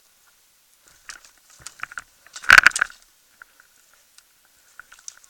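Scattered short clicks and rattles, with a loud burst of sharp knocks about two and a half seconds in.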